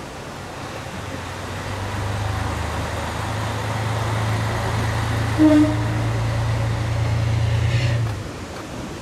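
Kamioka Railway KM-101 diesel railcar's engine running steadily as a low hum, swelling in the first couple of seconds and dropping away about eight seconds in. A brief higher tone, the loudest moment, sounds about halfway through.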